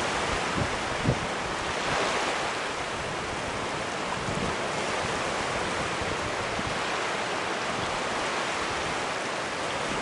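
Small sea waves washing up and breaking on a sandy beach, a steady rushing surf, with a few gusts of wind rumbling on the microphone in the first second or so.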